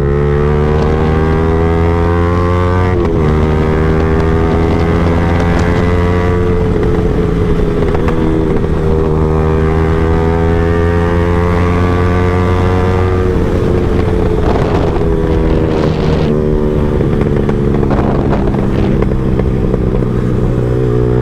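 Yamaha R15M's single-cylinder engine and exhaust under way, the note climbing steadily in each gear and dropping sharply at upshifts about three, six and a half, and thirteen seconds in. A few crackling pops follow shortly after the last shift: the exhaust popping on the overrun.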